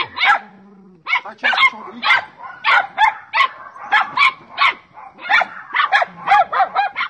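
A small dog barking repeatedly in quick, high-pitched yaps, two or three a second, with a short pause about half a second in.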